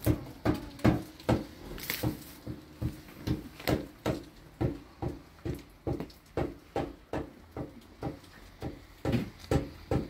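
A child's toy drum being beaten steadily, about two strokes a second, each stroke a short ringing knock.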